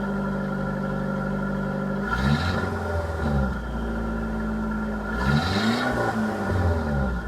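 Mitsubishi Airtrek with its stock exhaust, idling steadily and blipped twice. Each rev rises and falls back to idle within about a second and a half, the first about two seconds in and the second about five seconds in.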